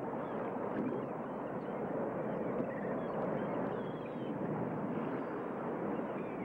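Ocean surf washing on a beach: a steady, even rush, with faint short high chirps above it.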